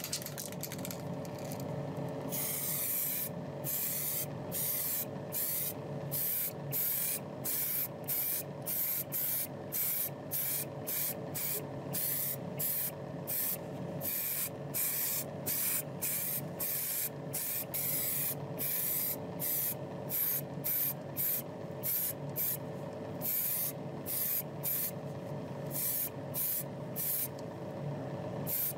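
Paint spraying: a continuous hiss for about two seconds, then short repeated bursts about one and a half times a second, over a steady mechanical hum.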